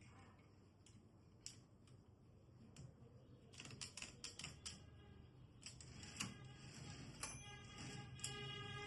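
Keys of an Olivetti Lettera 33 manual portable typewriter being struck: sparse, irregular clicks at first, then quicker runs of keystrokes from about a third of the way in. A pitched ringing tone joins the clicks near the end.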